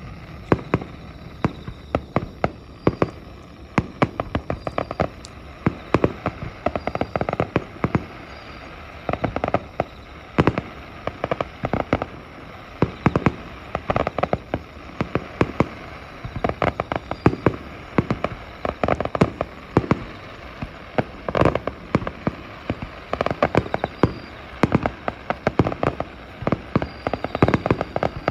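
Fireworks display: a continuous run of sharp bangs and crackling pops, coming in rapid clusters of several a second with barely a pause.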